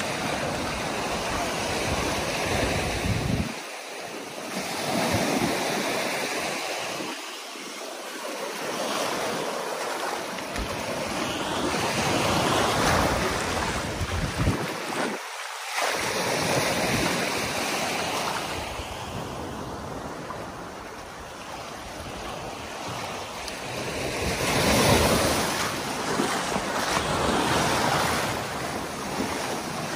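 Small waves washing up a sandy beach and drawing back, the surf swelling and fading several times, loudest about three-quarters of the way through, with wind on the microphone.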